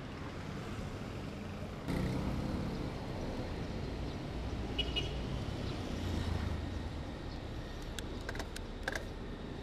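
Road traffic heard while riding along a city street: a steady low rumble of passing motor vehicles, with a few short clicks near the end.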